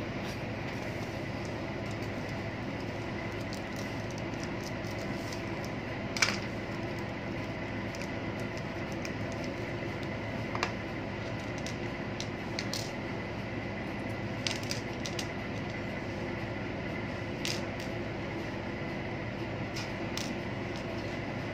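Steady machinery hum with a faint constant high whine, broken by scattered light clicks and taps of small parts being handled. The loudest click comes about six seconds in.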